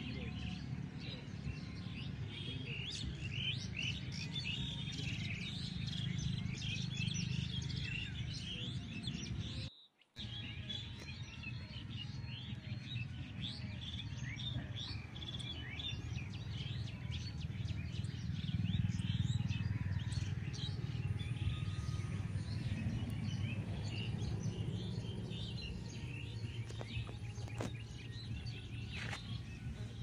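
Tropical forest ambience: many small birds chirping and twittering densely over a low steady rumble. The sound cuts out briefly about ten seconds in.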